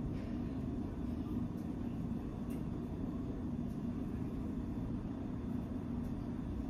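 Steady low rumble with no change in level, with a few faint light ticks over it.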